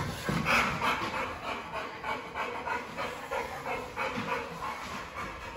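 A dog panting close by in quick, even breaths, about two or three a second.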